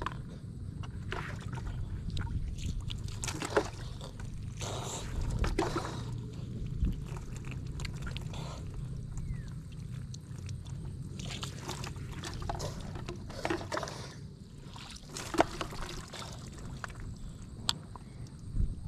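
Water poured over a man's head and body while bathing, splashing onto the ground in several separate pours of a second or so each.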